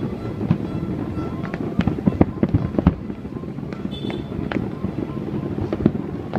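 Fireworks going off, many sharp bangs and cracks at an irregular rapid pace, thickest a couple of seconds in, over a steady rumble.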